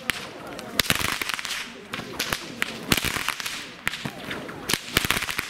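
Many Hungarian herdsmen's whips cracking together in an uneven volley, several sharp cracks a second overlapping one another. Crowd voices run faintly underneath.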